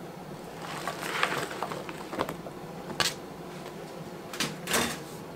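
Salad vegetables being dropped by hand into a plastic bowl: leafy rustling and a few light knocks, the sharpest about three seconds in and two more near the end.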